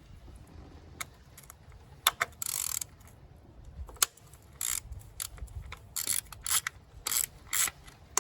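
Socket ratchet clicking in short bursts of strokes, with a few sharp cracks, as the 8mm ignition-coil bolts on a Ford Focus engine are broken loose.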